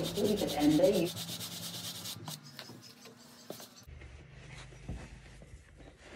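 A stiff shoe-cleaning brush scrubs a sneaker in rapid back-and-forth strokes. The bristles rasp against the shoe. The scrubbing turns quieter and more irregular after about two seconds.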